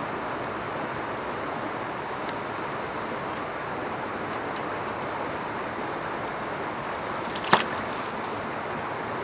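Steady rushing outdoor noise by the water's edge, with one sharp knock about seven and a half seconds in, the loudest moment.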